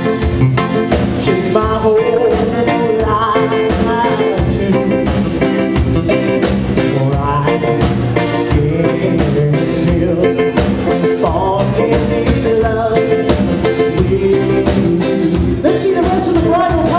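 Band music with a singer over electric guitars and a drum kit, playing a song with a steady beat.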